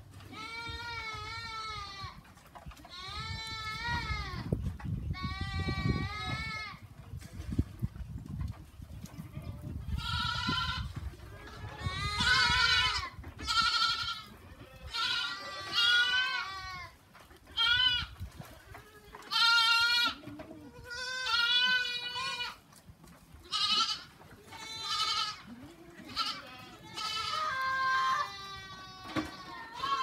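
Goats bleating again and again, over a dozen wavering, quavering calls one after another, some overlapping. A low rumble runs under the calls in the first third.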